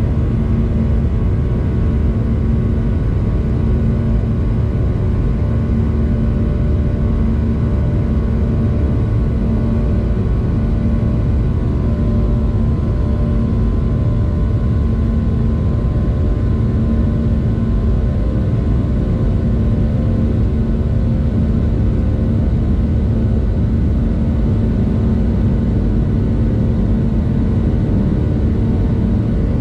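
Jet airliner cabin noise in the climb: the engines and airflow make a loud, steady low rumble, with steady humming tones above it.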